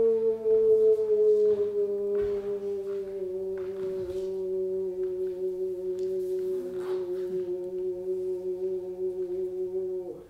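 A human voice holding one long sung note that slides slowly down in pitch, then stops abruptly near the end.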